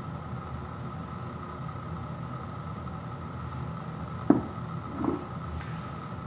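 Steady low background hum, with two short knocks about a second apart near the end as a ceramic bowl and metal spoon are handled over a wooden floor while scooping ice cream.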